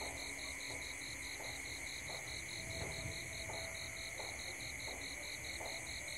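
Night chorus of crickets and other insects: a steady high trill pulsing about five times a second over a continuous higher drone, with faint short calls repeating lower down.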